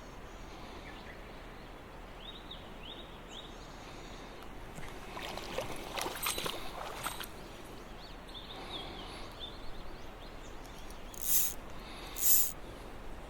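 River current running steadily, with small birds chirping a few times about two to three seconds in and again around eight to nine seconds. Around the middle comes a run of sharp clicks and splashy noise, and near the end two short, loud hissing swishes.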